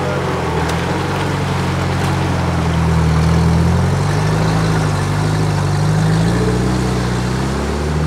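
UAZ Bukhanka van's engine running steadily at low revs. Its pitch wavers a little and rises slightly near the end.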